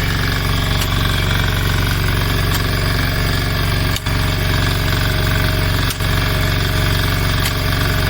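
An engine running steadily at constant speed, with two very short breaks about four and six seconds in.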